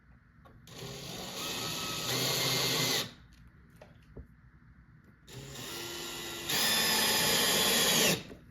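Power drill-driver driving two screws, one after the other, to fasten a door-lock strike plate. Each run starts slower and steps up to a louder, faster speed partway through.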